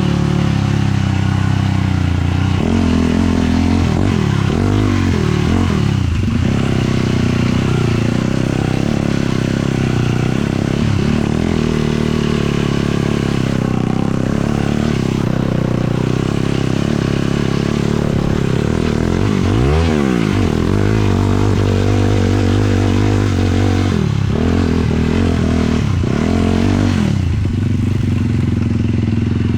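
Sport quad's 450cc single-cylinder four-stroke engine running hard while riding, its revs rising and falling through the throttle and gear changes, with a sharp rev up and back down about twenty seconds in and several more near the end.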